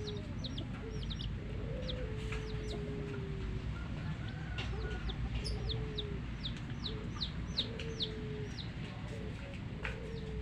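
Chicks peeping without pause, many short high falling peeps, while a hen gives low drawn-out clucking calls, some held for about a second. A steady low rumble runs underneath.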